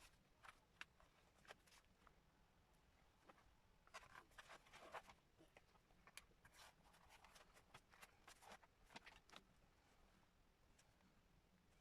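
Faint rustling, tapping and scratching of paper and thread being handled while hand-stitching signatures into a journal's spine, in quick clusters that are busiest around the middle.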